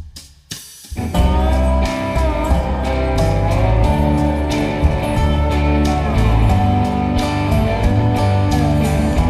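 Background music: a few separate drum hits, then about a second in a full band with guitar comes in and plays on steadily.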